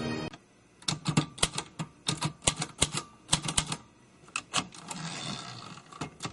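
An irregular run of sharp clicks, several a second, stopping and starting, like keystrokes.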